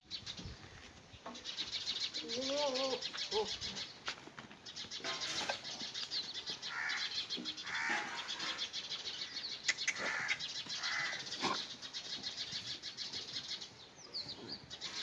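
Goats bleating on and off, with a wavering bleat about two seconds in and shorter, higher bleats later, over birds chirping.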